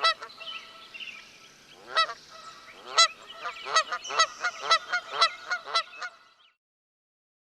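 Geese honking: a few spaced honks, then a quicker run of honks, fading out about six seconds in.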